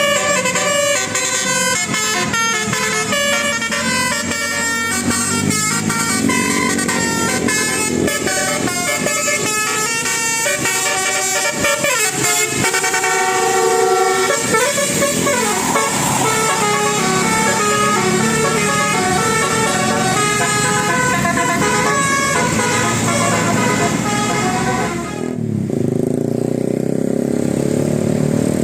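Bus 'telolet basuri' musical air horn playing a quick multi-note tune, its pitch stepping from note to note every fraction of a second. About 25 seconds in the horn stops, leaving a lower rumble.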